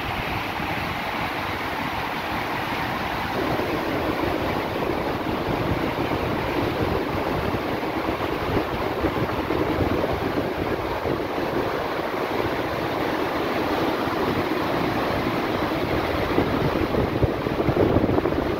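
Foaming wake churning behind a ship's stern, with wind buffeting the microphone: a steady rushing noise with a gusty low rumble, a little louder near the end.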